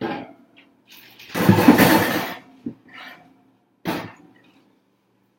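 Food containers being put back onto refrigerator shelves: a knock, then a loud scraping rattle lasting about a second, followed by a few lighter knocks.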